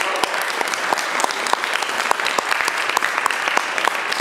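Audience applauding at the end of a song: many people clapping steadily.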